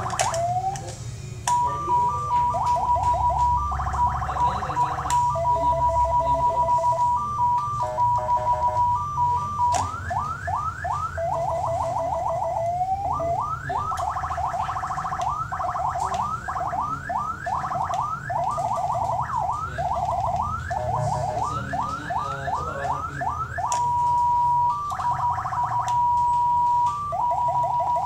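CJB150 electronic siren module sounding through a 200 W chrome horn speaker, switching between its tones every few seconds: a held steady tone, runs of quick rising yelps, and alternating two-pitch hi-lo stretches.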